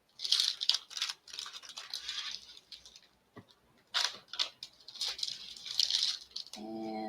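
Plastic packaging crinkling and rustling in several irregular bursts as a package is handled and opened, with a few light clicks. A voice starts near the end.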